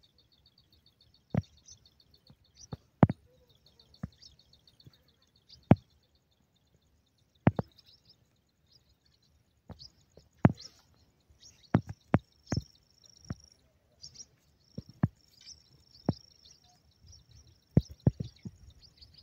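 Sharp clicks and knocks at irregular intervals, typical of a phone being handled while it pans, over a fast high chirring trill in the first few seconds and a thin steady high buzz with ticking through the second half, from birds or insects.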